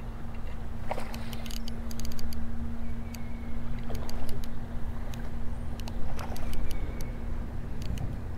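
Rough rumbling handling noise from a phone rubbing against a hand and plaid shirt while a smallmouth bass is fought on a Shimano Aldebaran BFS baitcasting reel, with a steady low hum and scattered sharp clicks from the reel and tackle.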